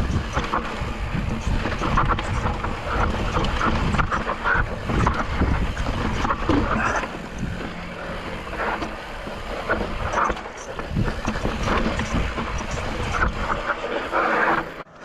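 Wind buffeting the microphone over the rattle and crunch of a mountain bike rolling over a rocky trail, with short sharp clatters throughout. It drops off sharply near the end.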